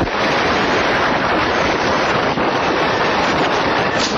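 Loud, steady wind noise buffeting the microphone of a fast-moving car, with no clear engine note. There is a brief sharp knock near the end.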